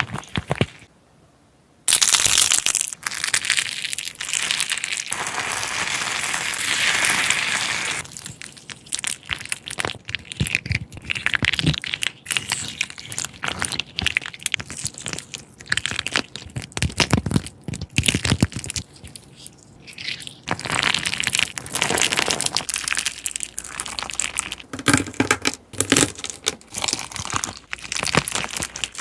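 Hands squishing and stretching slime: a dense run of crackling, popping clicks that starts about two seconds in.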